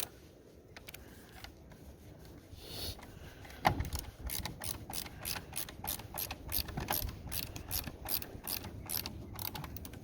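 A hand ratchet clicking as a screw is driven into the side mirror's lower cover: a sharp knock a little under four seconds in, then steady quick clicks, about five a second.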